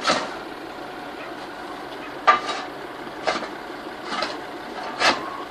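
A stuck municipal vehicle's engine running as it tries to pull out of deep snow. Short loud bursts come roughly once a second from about two seconds in.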